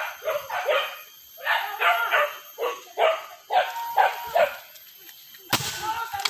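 Hunting dogs barking in rapid clusters of short barks on a wild boar hunt. Near the end there is a sudden loud rush of noise.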